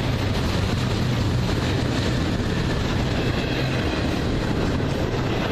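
Slow intermodal freight train rolling past, with steady wheel-on-rail noise.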